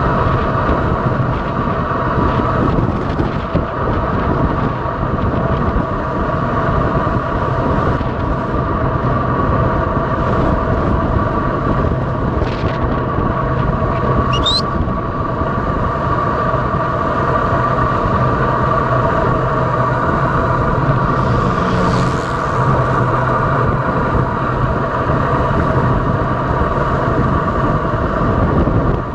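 Steady road and wind noise of travelling fast along a paved highway, with a steady hum under the rush. About halfway through comes one brief rising high squeak.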